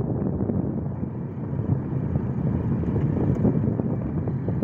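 Wind buffeting the microphone in a steady, rough rumble that flickers in loudness.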